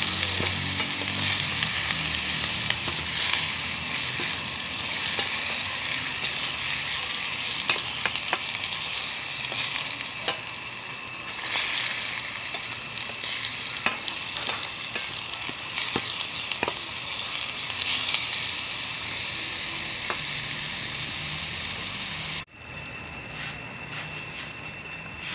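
Chicken livers and gizzards sizzling as they fry in a pot over onions, with a utensil now and then clicking against the pot as they are stirred. Near the end the sizzling suddenly drops to a quieter, steadier sizzle.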